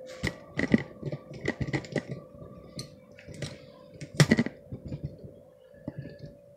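Irregular clicks and knocks of a phone being handled and tapped as it is moved about, over a faint steady hum.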